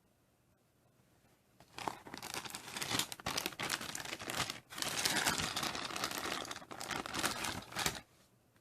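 Crinkling, crackling handling noise made of many small clicks, starting a couple of seconds in, breaking off briefly midway, and stopping abruptly near the end.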